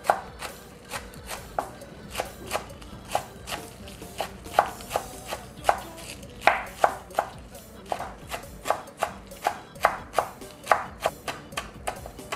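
Kitchen knife chopping green onions on a wooden cutting board: a steady run of sharp knocks, about two or three strikes a second, as the blade hits the board.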